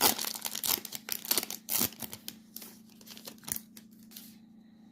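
Foil wrapper of a Panini Prizm UFC trading-card pack being torn open and crinkled by hand: a quick run of crackles that stops about four seconds in.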